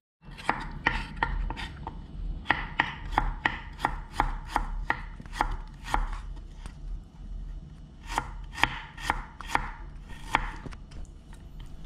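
Kitchen knife slicing fresh ginger on a thick wooden end-grain cutting board: sharp knocks of the blade on the wood, about three a second, with a short pause about two-thirds of the way through.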